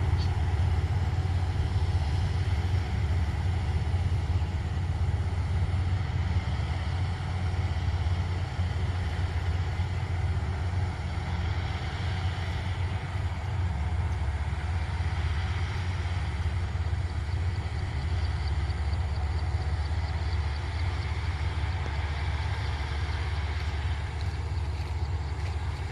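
Diesel engine of farm machinery, a combine harvester or tractor, running steadily at constant speed with a deep, even drone.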